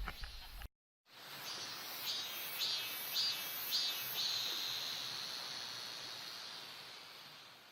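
Insect chirring: after a brief cut to silence, a few short pulsed calls give way to a steady high buzz that slowly fades out.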